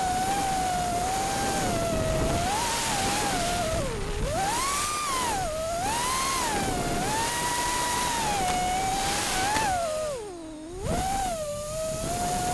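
Brushless motors of a 5-inch 6S FPV quadcopter (T-Motor Blackbird V2, 2800 kV) whining in flight, the pitch swooping up and down with the throttle. About ten seconds in the pitch sinks low and the sound briefly drops away, then climbs back.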